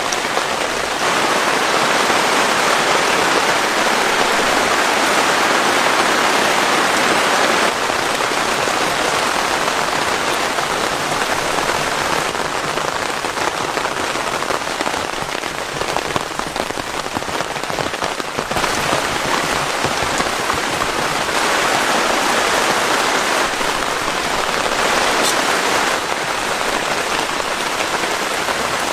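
Heavy rain falling steadily, a dense hiss of drops on surfaces, its loudness shifting abruptly every few seconds.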